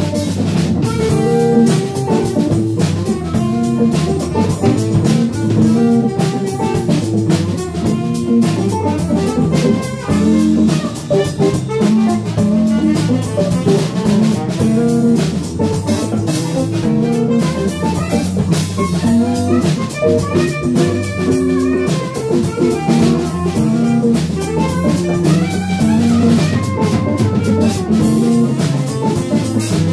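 Live band playing an instrumental jam with a jazzy feel: a drum kit keeps a steady beat under electric guitar and a Fender electric bass.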